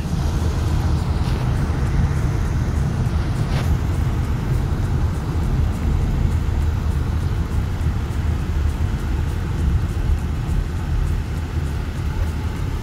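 Steady low rumble of engine and road noise heard inside a moving car's cabin.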